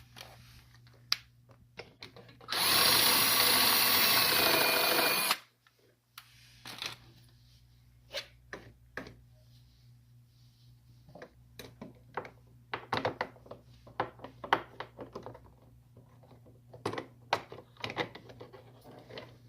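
Power drill running in one burst of about three seconds, starting a few seconds in, as an 11/16-inch bit cleans up and widens the hole for the brake lock. Afterwards, scattered light clicks and taps.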